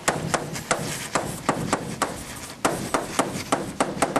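Chalk tapping and scraping on a blackboard as words are written: an irregular run of sharp clicks, about three or four a second.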